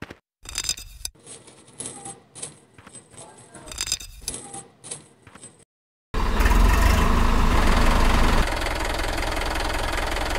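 A small metal chain clinking and rattling as it is unhooked by hand and dropped. About six seconds in, the loud, steady running of a toy tractor's small electric motor cuts in suddenly.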